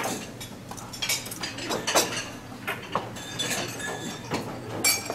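Tableware clinking as banquet tables are set: china plates, bowls, glasses and cutlery knocked together and set down, in scattered short clinks, a sharp one about two seconds in and another near the end.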